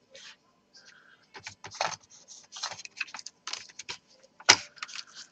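Irregular small clicks and scrapes of a laptop's plastic and metal parts being handled while the motherboard is lifted out, with one sharper click about four and a half seconds in.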